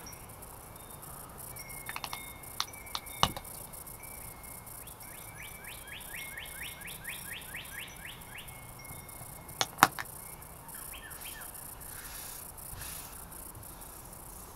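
A songbird singing a quick run of short, evenly spaced descending notes. Several sharp clicks and taps come a few seconds in, and the loudest pair comes near ten seconds in.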